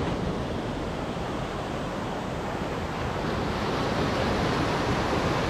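Surf washing in small waves onto a sandy beach, a steady rushing noise, with wind rumbling on the microphone.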